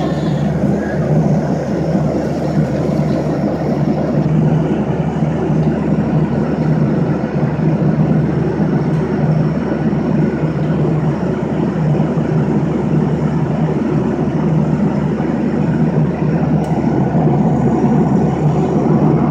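Steady drone of a jet airliner at cruise heard inside the cabin by a window seat next to the engine: an even rush of engine and airflow noise with a low hum beneath, unchanging throughout.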